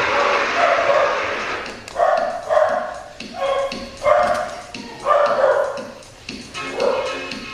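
A dog barking repeatedly, about six barks from about two seconds in.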